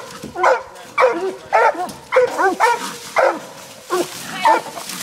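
Walker hounds barking in short, repeated barks, about two a second, in a steady run without pause.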